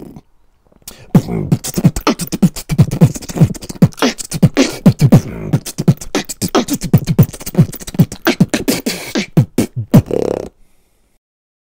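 Vocal beatboxing: a fast, dense run of mouth-made drum sounds, with low falling bass thumps and sharp hissing snare and hi-hat hits. It starts about a second in and cuts off about a second before the end.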